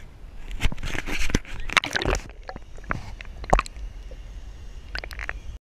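Handling noise of a small camera being dipped into lake water from a boat: irregular knocks and scrapes against the hull, with water sloshing and gurgling. The sound cuts off abruptly near the end.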